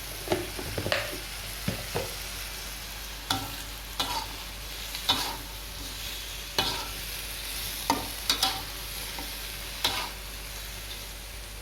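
Squid and green chillies sizzling in oil in a wok, with a spatula scraping and knocking against the pan about once a second as the dish is stirred.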